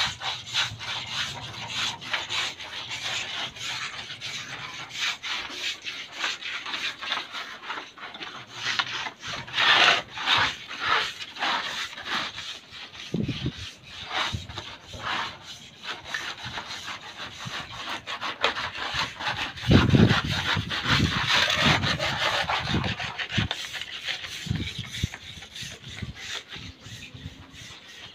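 Hand tools scraping and rubbing over a broken-tile mosaic roof floor in rapid, repeated strokes, as cracks are worked for filling. A few dull thumps, the loudest about two-thirds of the way through.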